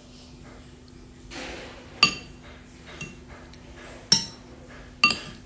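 Spoon clinking against a plate of rice: four sharp ringing clinks about a second apart, the third fainter, with a short scrape just before the first.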